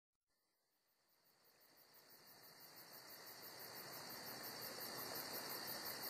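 Insect chorus: a steady high chirring with a fast, even pulse, fading in from silence about two seconds in and staying faint.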